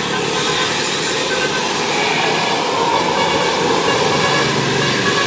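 A heavy vehicle, most likely a large bus on the climb, running past as a steady, loud noise with no horn sounding.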